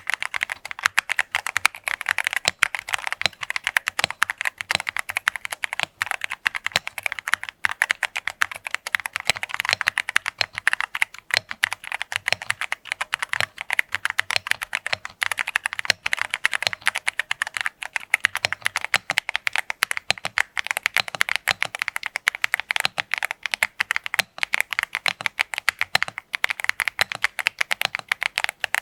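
VortexSeries Xera87 TKL gasket-mount mechanical keyboard being typed on steadily and fast, with a dense run of keystrokes. It has stock Otemu Jet White linear switches, thick PBT double-shot keycaps and full factory foam dampening. Its stabilizers are lubed out of the box, with no rattle or ticking.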